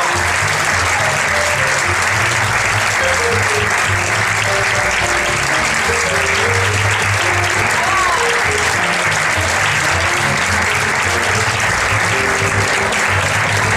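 Audience applauding steadily, with music playing beneath the clapping.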